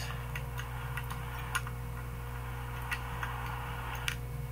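Tin snips cutting around the rim of a steel tin can: a series of sharp, irregular metallic snips, the loudest about a second and a half in and near the end, over a steady low hum.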